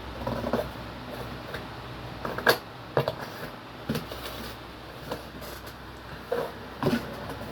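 Scissors cutting a cardboard box and the cardboard being handled: scattered sharp snips and knocks, the loudest about two and a half seconds in.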